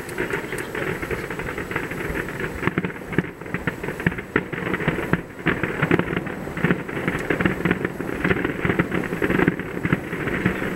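Fireworks bursting, a dense irregular run of crackles and pops.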